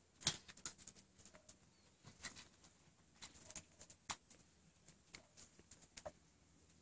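Very faint, scattered clicks and soft rustles from a litter of young kittens squirming against each other on a fleece blanket.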